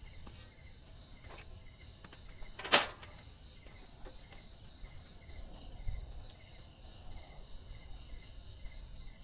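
Insects chirping steadily in the forest: a pulsed chirp about twice a second over a thin, steady high drone. A single sharp snap or knock sounds about three seconds in.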